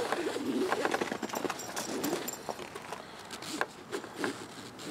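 Nylon webbing strap being handled and pulled through D-rings and a plastic buckle on a motorcycle saddlebag: scattered light clicks and rustles.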